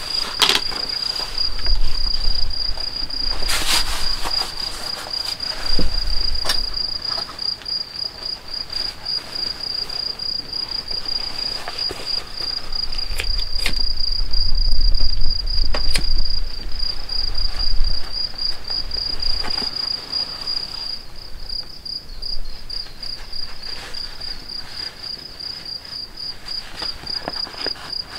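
Crickets trilling steadily at a high pitch throughout, with a few sharp clicks from handwork, among them a lighter being flicked about halfway in.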